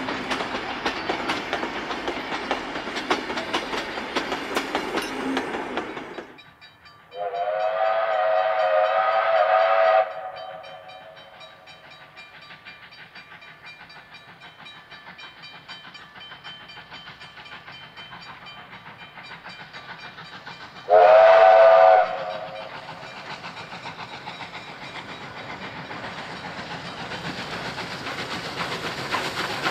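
Passing wooden carriages, their wheels clicking steadily over the rail joints. After a break, the oil-burning Victorian Railways J class steam locomotive J541 sounds its steam whistle, a long blast of about three seconds and then a short loud one about eleven seconds later, while its running noise swells near the end as it approaches.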